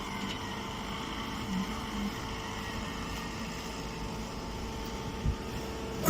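Steady mechanical hum of a running machine, with a brief low thump about five seconds in.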